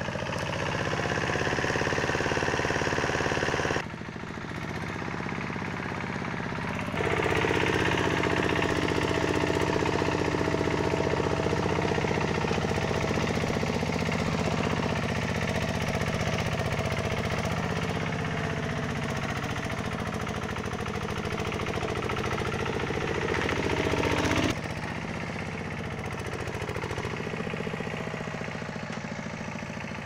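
Zubr 12 hp motor-tractor's single-cylinder diesel engine working hard under load, pulling a trailer of firewood through mud. The sound is a steady, knocking chug. Its loudness steps down suddenly about four seconds in, comes back louder about seven seconds in, and drops again near 25 seconds.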